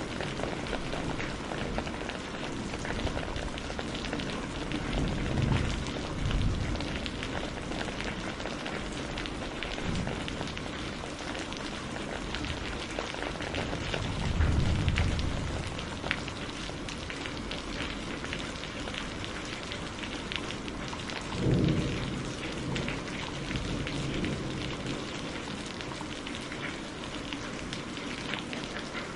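Steady heavy rain with a dense patter of drops, and thunder rumbling low several times, the strongest rolls about halfway through and again later with a sharper start.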